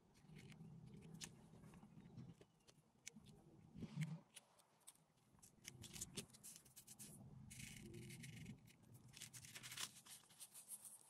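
Faint scratching and rustling of fingers rubbing coloured sand into the sticky surface of a sand-art sheet. There are scattered small scrapes, and a louder rustle near the end as the paper sheet is lifted and tilted.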